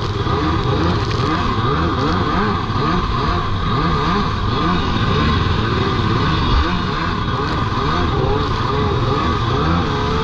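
Several jet ski engines revving at once, each repeatedly rising and falling in pitch as the throttle is worked.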